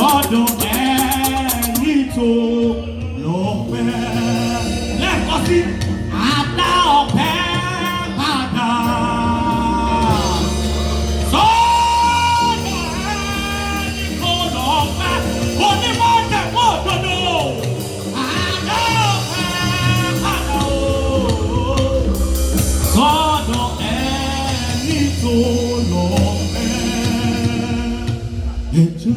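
Youth choir singing a praise song with instrumental accompaniment and a steady bass line.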